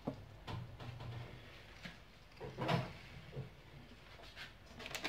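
A few light knocks and clatters of kitchen things being handled, the loudest nearly three seconds in, over a faint low hum.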